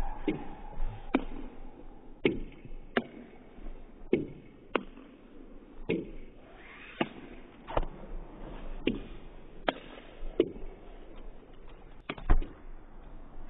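Table tennis ball being hit back and forth in a long rally: sharp clicks of the ball off the bats and the table, about one every three-quarters of a second, with no break in the exchange.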